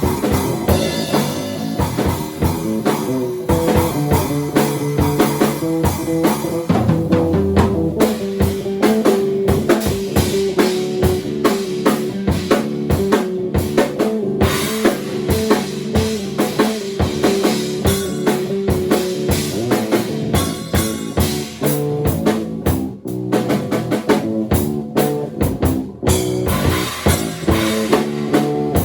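Bass and drum kit improvising together in a rock style: busy, closely spaced drum hits over a moving bass line.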